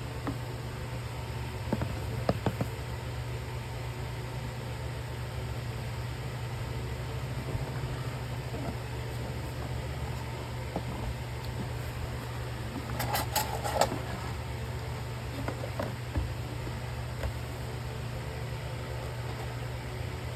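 Steady low hum with a few sharp handling clicks about two seconds in, and a short burst of clicking and rattling about two-thirds of the way through, typical of packaging and parts being handled.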